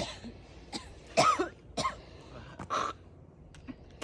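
A person coughing and clearing their throat, about five short, harsh bursts spread over a few seconds.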